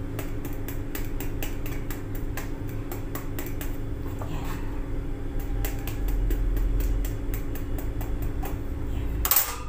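A fork pricking the skin of a whole eggplant over and over, a run of short clicks over a steady low hum, with one louder knock near the end.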